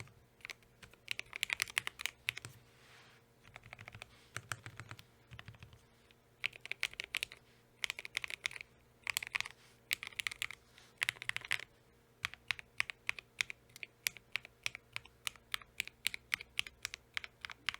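Akko ACR61 mechanical keyboard with lubed Akko CS Crystal switches being typed on: quick bursts of keystrokes, then slower single key presses at about two a second in the last six seconds.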